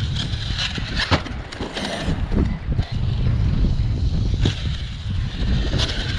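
Strong wind buffeting the microphone in a heavy, steady rumble, with several short bursts of an Arrma Kraton 6S RC car's electric motor and tyres as it is driven.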